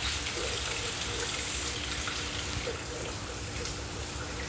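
Steady rain falling, with a stream of rainwater running off the roof edge.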